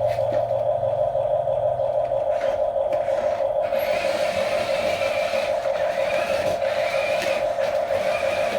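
Small electric motor and gearbox of a radio-controlled toy construction vehicle whining steadily at one pitch, with a fast flutter, and a fainter higher whine joining about halfway through.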